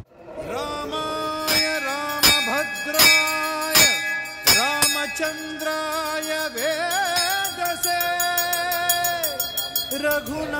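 Indian devotional music: a gliding, ornamented melody line over a backing, with several sharp percussive strikes during the first five seconds.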